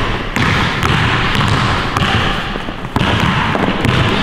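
A basketball being dribbled on a hardwood gym floor.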